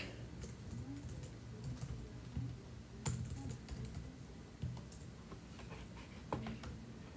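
Irregular clicking and tapping on a computer's keys and mouse: about ten scattered clicks, the sharpest about three seconds in and again near the end, over a low steady hum.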